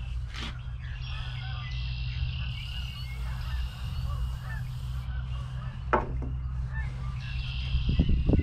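Steady wind rumble on the microphone, with two sharp clicks, about half a second in and near six seconds, from handling the rifle's action and cleaning gear.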